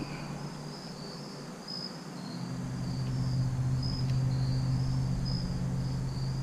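Crickets chirping steadily in a high, pulsing trill. About two seconds in, a steady low engine-like hum comes in under them and grows louder.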